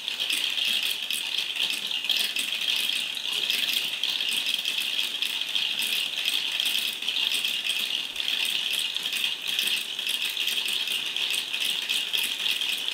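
LEGO marble run in continuous operation: many small balls rolling and clattering along the plastic tracks and through the chain-driven elevator. The result is a dense, unbroken rattle of fine clicks.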